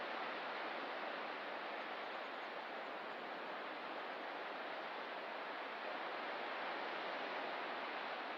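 Distant ocean surf heard as a steady, even wash, with no separate breaks standing out.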